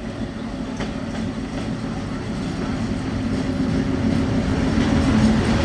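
WDM-3A diesel locomotive running light at low speed, its ALCO engine's steady drone growing louder as it approaches and draws alongside.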